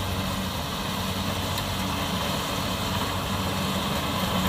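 Kubota DC70 combine harvester running steadily as it cuts rice, its diesel engine and threshing machinery giving an even, unbroken hum.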